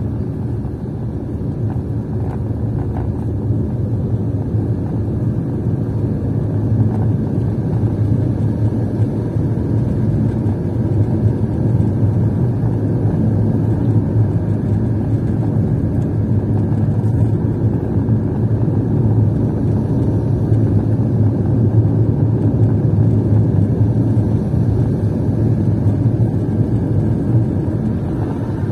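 A car's road and engine noise heard from inside while driving: a steady low drone of tyres and engine that grows slightly louder after about six seconds.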